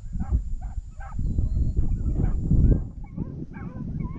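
Several hunting beagles baying in quick, overlapping calls, over a loud, uneven low rumble.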